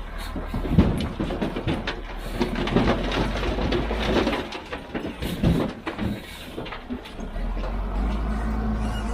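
Heavy diesel construction machine running, with a rapid series of clanks and knocks over the first six seconds or so as the machine works.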